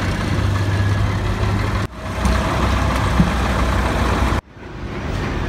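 Farm tractor engine running with a steady low hum as it pulls a loaded trolley of sugarcane, broken by two sudden cuts, after which the hum sits lower.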